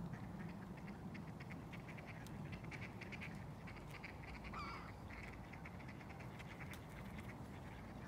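Gulls calling: a run of short, quick repeated calls, with one longer wavering call about four and a half seconds in, over a steady low rumble.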